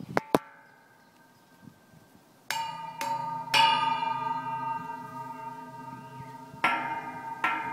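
Metal fence railings struck one after another, each giving a bell-like ring that hangs on and slowly fades. There are a few clicks and a quiet pause first, then three strikes close together about two and a half seconds in and two more near the end.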